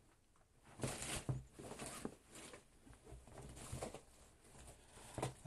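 Hands rummaging through items in a storage box: scattered rustling with light knocks and clicks.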